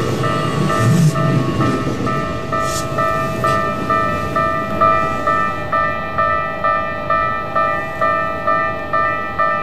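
Japanese level-crossing warning bell ringing in an even, repeated ding, a little under two strikes a second. A Keikyu train's rumble fades away under it over the first couple of seconds.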